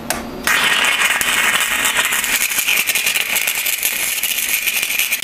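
Stick-welding arc from a 1/8-inch 7018 electrode at 125 amps, struck about half a second in and then crackling and sizzling steadily, like bacon frying.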